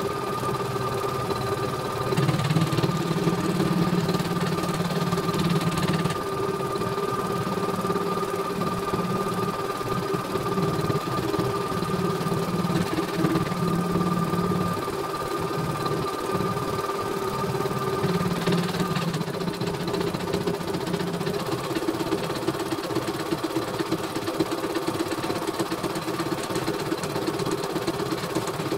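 CNY E900 computerized embroidery machine running a test: rapid steady needle strokes and a motor hum as the hoop carriage moves the frame under the needle. A steady high whine stops about two-thirds of the way through.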